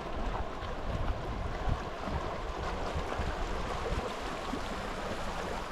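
Zanskar River water rushing steadily around a moving raft.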